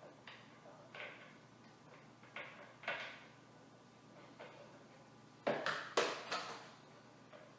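Irregular knocks and clatters of hard office-chair parts being handled and fitted together, a few light ones about a second apart, then a louder cluster near the end.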